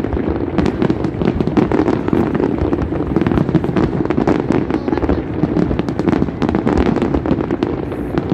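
Aerial fireworks display: a dense, continuous run of bangs and crackles overlapping one another, with no pause.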